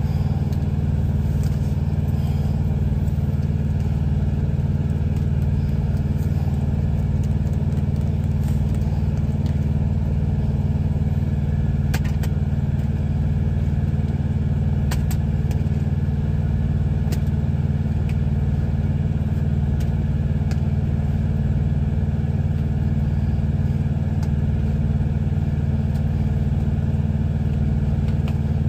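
Steady low drone of a truck's diesel engine idling, heard from inside the cab, with a few faint clinks of dishes and utensils.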